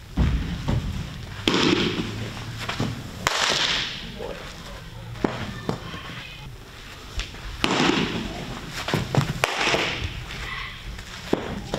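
Baseballs smacking into leather gloves during a catcher's throwing drill to second base: a series of sharp pops and knocks at irregular intervals, mixed with short scuffing bursts from the throws.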